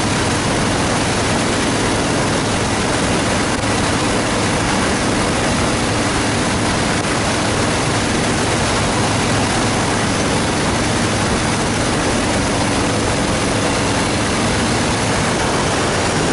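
Heavy wind noise on the microphone of a 2014 Harley-Davidson Fat Boy Lo cruising at steady highway speed, with the motorcycle's V-twin engine droning evenly underneath.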